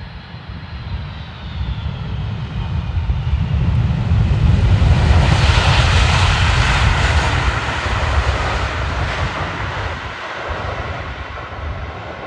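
Large jet airliner's engines passing close on landing: a low rumble and a high whine that falls in pitch, swelling to a loud roar about halfway through, then easing off.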